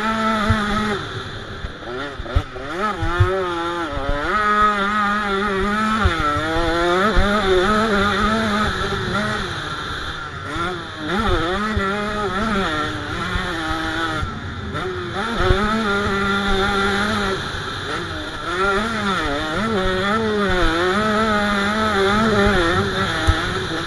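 KTM 85 SX two-stroke single-cylinder engine at full race pace, its pitch climbing and dropping over and over as the throttle is worked and gears are changed. Low thuds are heard now and then.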